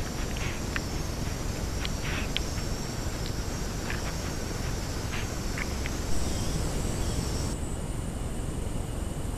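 Rainforest ambience on a trail camera's microphone: a steady high insect drone over hiss, with a few short chirps in the first half. A brief knock comes about six seconds in, after which the background hiss changes character.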